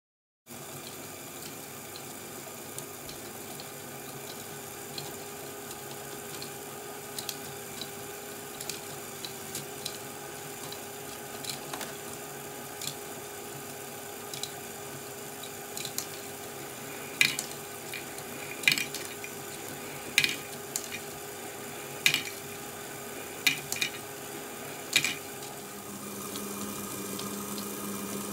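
A LEGO Great Ball Contraption module built from roller-coaster track and cars running: a steady motor hum with light plastic clicking and rattling of balls and cars moving through the mechanism. A run of louder, sharp clicks comes between about 17 and 25 seconds in, and near the end the motor hum gets louder and lower.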